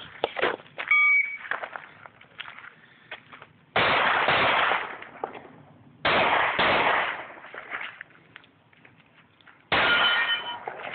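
A shot-timer beep starts a pistol match stage, followed by four handgun shots fired slowly over several seconds, two of them close together. The last shot is followed by a brief metallic ringing.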